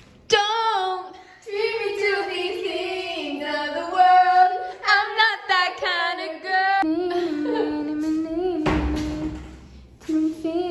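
A woman singing a melody in a clear, sliding voice, with little or no backing. About nine seconds in there is a short rustling noise.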